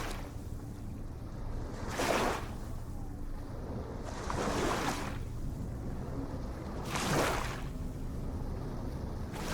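Ocean surf washing in, a rushing swell of waves rising and falling about every two and a half seconds over a steady low rumble of sea noise.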